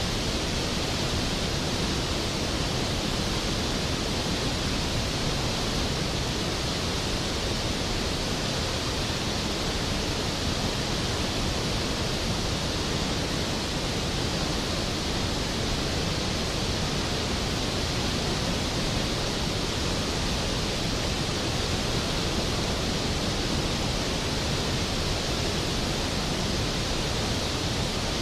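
Skógafoss waterfall: a steady, powerful rush of falling water that does not change.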